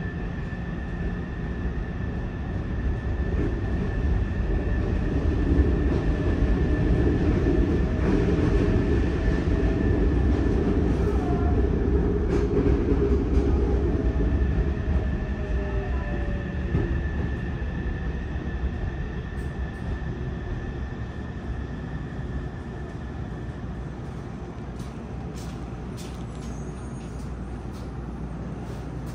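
Interior running sound of a Yokohama Subway 3000R train with Mitsubishi IGBT-VVVF traction equipment, pulling into a station: wheel-and-rail rumble with a steady high tone. The motor tone falls in pitch as the train brakes, and the sound eases off as it comes to a stop, with a few clicks near the end.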